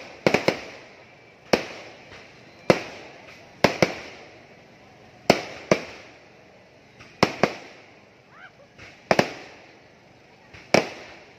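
Aerial fireworks shells bursting overhead: about a dozen sharp bangs one to two seconds apart, several in quick pairs, each trailing off in a short echo.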